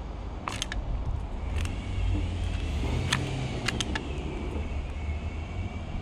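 Sharp clicks and taps of a house sparrow pecking at seed and shifting its feet on a clear plastic window feeder. Behind them is a low, steady rumble of traffic, with a passing car swelling and fading in the middle.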